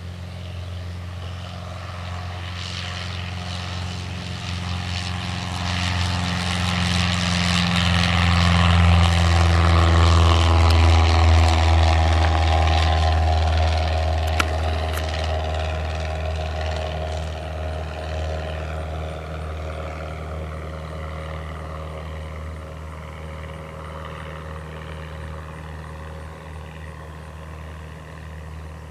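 A 1976 Cessna 150M's four-cylinder Continental O-200 engine and propeller at take-off power, a steady drone that grows louder as the plane rolls and lifts off past, then drops in pitch and fades as it climbs away. A single sharp click sounds about halfway through.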